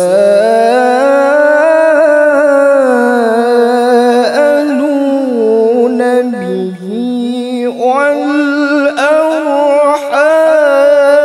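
A single voice reciting the Qur'an in the melodic tilawah style, holding long drawn-out notes that waver and glide in pitch, with brief breaths and a dip a little past halfway.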